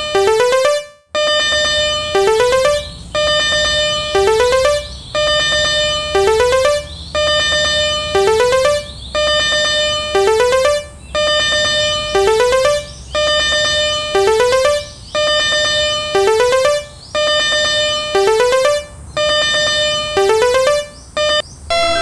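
Electronic synthesizer music: a quick rising run of notes lands on a held note, and the phrase repeats about every two seconds.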